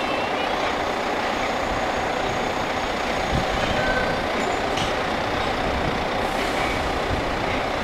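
Heavy diesel truck engine running steadily.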